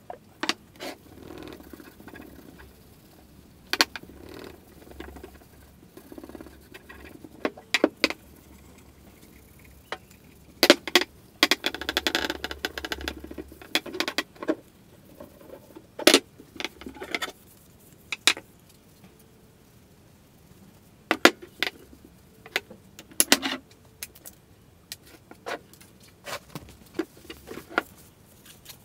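Workbench handling sounds: irregular knocks and clatter of cans, tools and an axe being picked up and set down on a wooden bench, with a stretch of rubbing and scraping about halfway through, while an axe handle is wiped down with a rag.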